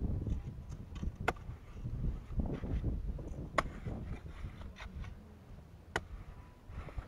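Hand hoe chopping and scraping into damp clay soil: dull thuds, with a sharp clack roughly every two seconds, three in all.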